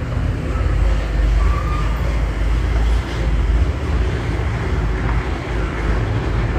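Steady low rumble of background noise, even and without distinct events.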